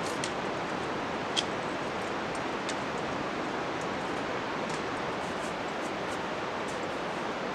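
Steady rush of a nearby glacial river, with a few faint clicks on rock, one sharper about a second and a half in.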